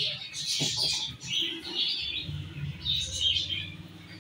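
Small birds chirping over and over in short bursts of high notes, with a low hum underneath in the second half.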